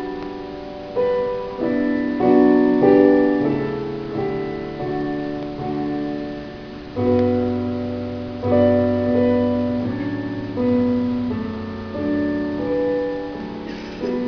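Piano playing slow chords, each struck sharply and left to ring and fade, a new chord roughly every second.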